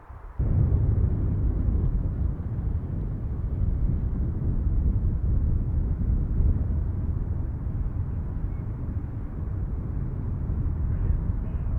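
Low, steady rumble of an aircraft passing close, cutting in abruptly about half a second in.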